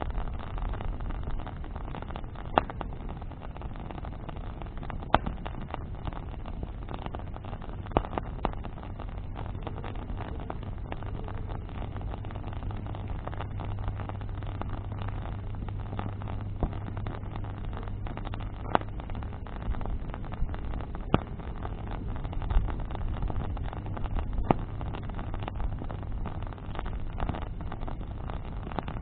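Wood bonfire burning: a steady rushing noise with sharp crackles and pops every few seconds. A low steady hum rises under it for several seconds in the middle.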